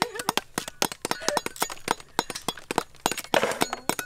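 Fruit rind being peeled and snapped off by hand: a dense, irregular run of sharp cracks and snaps, several a second.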